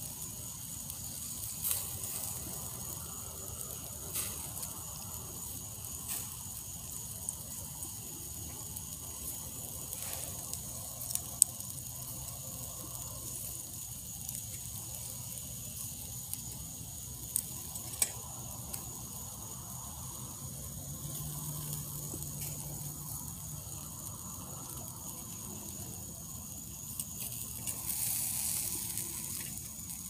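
Pork ribs sizzling on a wire grill grate over wood embers, a steady hiss broken by scattered sharp crackles and clicks, the loudest about a third of the way in and just past halfway.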